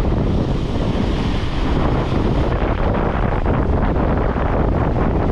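Sea waves breaking and washing white over rocks at the shoreline, with strong wind buffeting the microphone.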